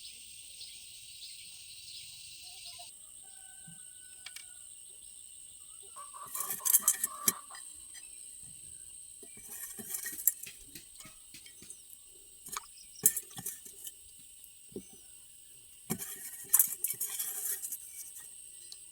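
Bursts of metallic clinks and knocks, like tools or small metal parts being handled and set down, in four short clusters. Behind them runs a steady high insect drone with a few bird chirps. No engine is running.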